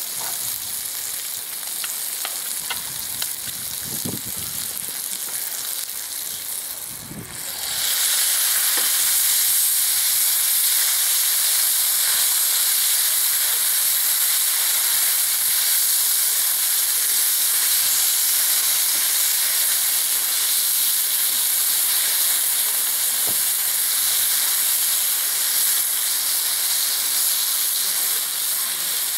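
Bacon, porcini and button mushrooms frying in a cast-iron skillet over a charcoal fire, stirred in the pan. A quieter sizzle with a few soft knocks for about the first seven seconds, then the sizzle suddenly turns much louder and stays steady, with steam rising off the pan.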